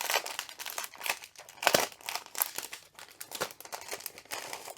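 Packaging crinkling in irregular crackles as a pack of diamond painting drills is opened by hand, with one louder crackle a little under two seconds in.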